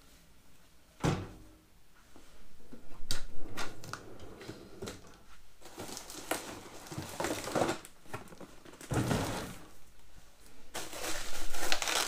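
A steel tool cart's drawer being pulled open, with knocks and thuds of metal handling. Plastic bubble wrap rustles and crinkles as the wrapped parts inside are handled, densest near the end.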